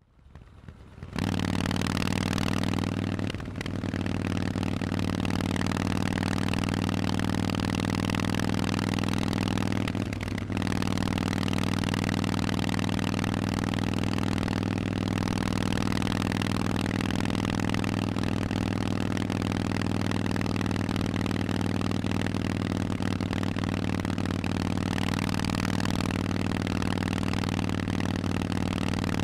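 Harley-Davidson Forty-Eight's air-cooled 1200 cc V-twin running through a Vance & Hines aftermarket exhaust, holding a steady engine speed. It comes in about a second in and dips briefly twice.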